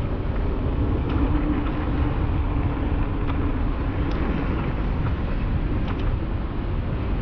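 Steady rumble of wind on the microphone and wheels rolling over pavement while riding, with a faint steady hum and a few light ticks.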